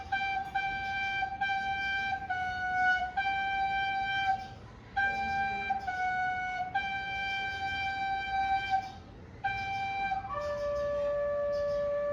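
Penny whistle playing a slow melody of long held notes, with two short pauses, ending on a lower note held for a couple of seconds.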